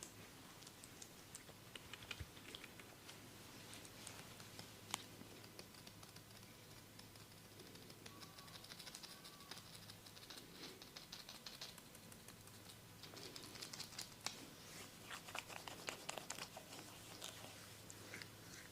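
Faint, close-up scratching and crackling from a barber's hands and tools working on a client's head and ears, with dense runs of tiny clicks that grow busier in the second half, over a low steady hum.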